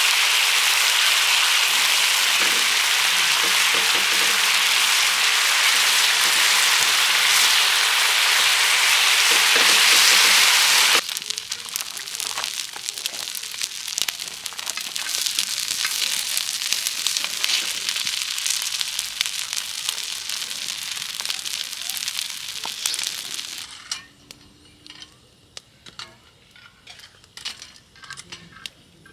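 Food frying in a pan: a loud, steady sizzle that cuts off suddenly about eleven seconds in. A crackling sizzle follows, then near the end softer, scattered pops and crackles.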